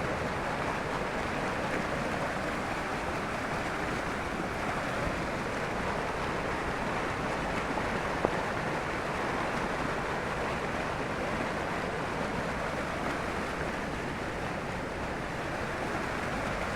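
Heavy rain pouring down in a steady, dense hiss, with a single sharp tick about eight seconds in.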